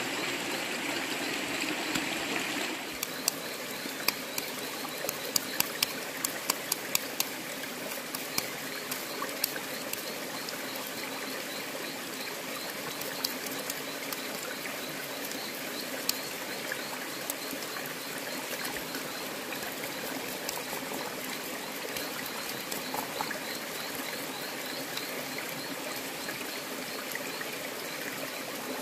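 Shallow stream trickling steadily over rocks. A run of sharp clicks comes a few seconds in, and a faint, high, rapidly repeating chirp sounds in the background.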